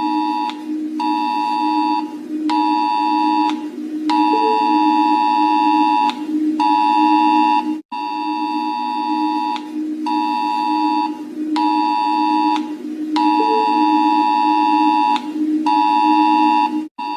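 Emergency Alert System-style alarm: a two-tone attention signal switching on and off in irregular pulses over a steady low drone. The pattern repeats about every nine seconds, with a brief cut between repeats.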